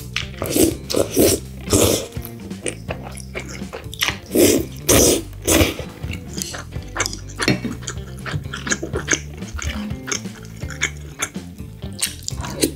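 Close-miked mouth sounds of spaghetti in tomato sauce being eaten: a string of short wet slurps and chewing, with the loudest slurps in quick runs, over soft background music.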